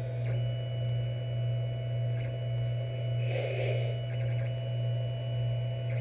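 3D printer running: a steady low hum with thin, high-pitched motor whines that cut in and out as it moves. A brief burst of noise comes about three and a half seconds in.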